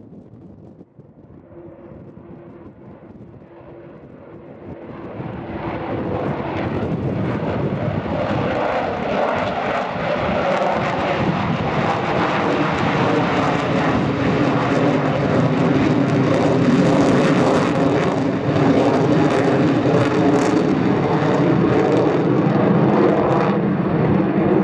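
Avro Vulcan's four Olympus jet engines at display power as the bomber banks and passes overhead, the noise swelling sharply about five seconds in and staying loud, with steady tones running through it.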